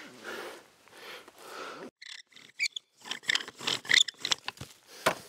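Bow drill in use: the wooden spindle scraping and squeaking in the hearth board as the bow is sawn back and forth. It starts with soft rubbing and runs into a quick series of strokes in the second half.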